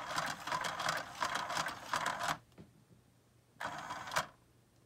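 Battery-powered Pounce cat toy running on its third speed setting: the motor and the plastic mouse wand whir and clatter around the track. It stops about two and a half seconds in, then gives one short half-second burst at about three and a half seconds.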